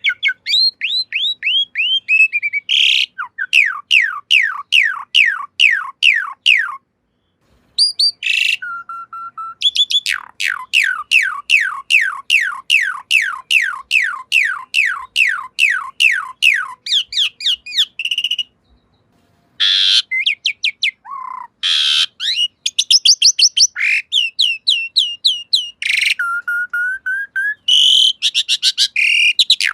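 Asian pied starling (jalak suren) singing: long runs of quick, falling whistled notes, about four a second, broken by a couple of short pauses and a few longer held whistles.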